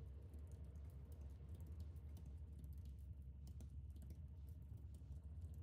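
Typing on a computer keyboard: a quick, irregular run of faint keystrokes over a low steady hum.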